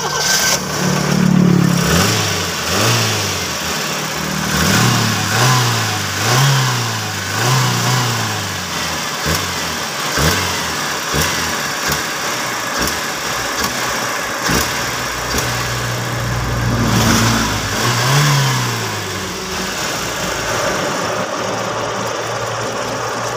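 Carbureted car engine with a freshly cleaned carburetor, running and revved by hand at the throttle linkage in a series of short blips. It then settles to a steady idle near the end.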